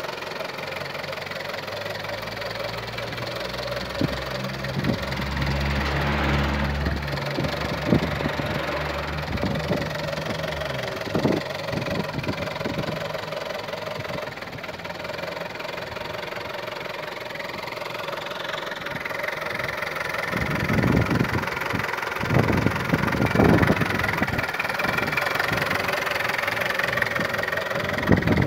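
Volkswagen 1.2 TSI petrol engine idling. Its low hum shifts in pitch between about four and eleven seconds in, and scattered sharp knocks stand out at times, most of them in the first half and again a little past two-thirds of the way through.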